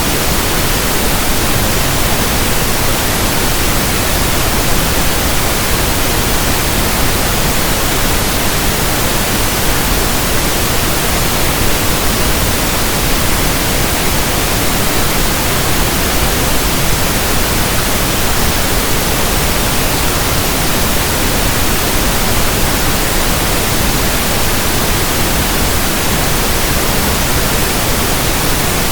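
Steady pink noise: a constant, even hiss that does not change.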